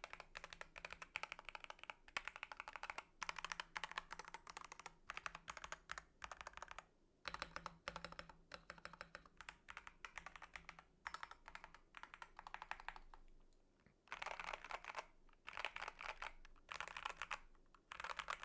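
Typing on a DrunkDeer A75 Pro magnetic-switch gaming keyboard: keys clacking in dense runs. After a short lull about two-thirds of the way through, there are four separate bursts of fast key presses, about a second each.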